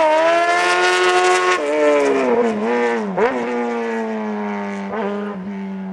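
Racing motorcycle engine at high revs, its pitch briefly dropping and climbing back about three times as it changes gear, slowly fading away.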